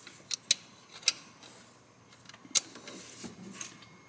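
A few scattered, sharp metallic clicks and taps of hand tools and metal parts at the alternator's mounting bolts, four louder ones in the first three seconds and fainter ticks after.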